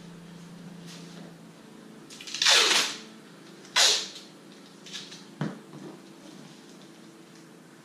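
Masking tape pulled off the roll in two short tearing strips, about two and a half and four seconds in, followed by softer handling noise and a light knock as the tape is pressed onto the stencil. A faint steady hum runs underneath.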